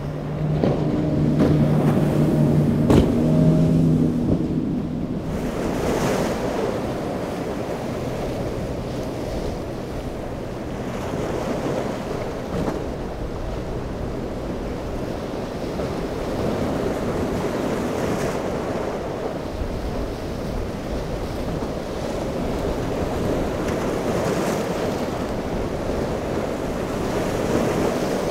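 Twin Suzuki 250 outboards of a boat powering through rough inlet waves, their engine drone loudest in the first few seconds and then fading. After that, steady surf and wind noise on the microphone.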